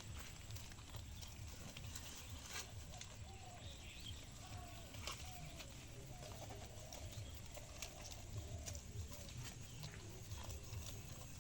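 Black Bengal goats feeding on grass and fallen leaves, with faint rustling and a few sharp snaps, over a steady low rumble.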